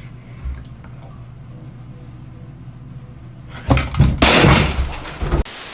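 Low steady hum, then about two seconds of loud, repeated crashing and banging, like something being knocked over and breaking, ending in a short burst of hiss.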